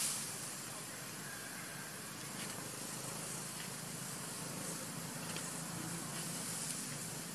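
Steady background hiss with a low hum underneath, a sharp click right at the start and a few faint ticks.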